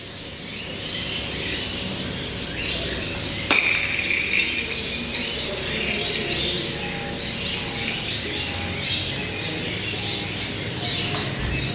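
Many small caged birds chirping together in a steady chorus, with one sharp click about three and a half seconds in.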